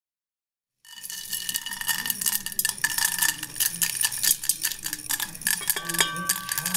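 Dried popcorn kernels poured from a glass bowl into a pot with hot oil: a dense rattle of many small clicks as the hard kernels strike the pot, starting suddenly about a second in, with a few clear ringing clinks.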